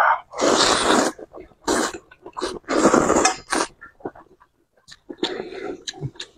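A person slurping noodles in spicy broth, about four loud, noisy slurps in the first few seconds with a quieter pause for chewing before a last slurp near the end.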